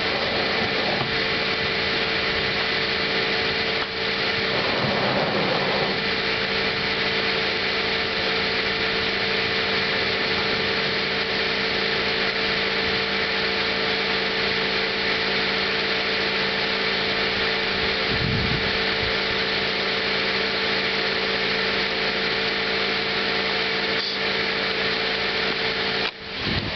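2010 Cadillac SRX's V6 engine idling: a steady mechanical hum with a few fixed tones. A short rustle comes about five seconds in and a brief low rumble near eighteen seconds.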